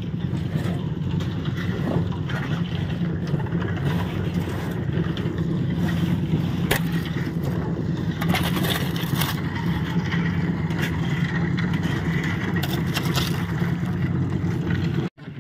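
Concrete mixer's engine running steadily, with gritty scrapes of a shovel working coarse stone concrete, loudest around the middle.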